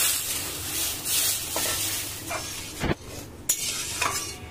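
A metal spatula stirs boiled chana dal and potatoes in a metal kadai. The wet mixture sizzles in the hot masala, loudest at first and fading after a couple of seconds, and the spatula scrapes and knocks against the pan a few times in the second half.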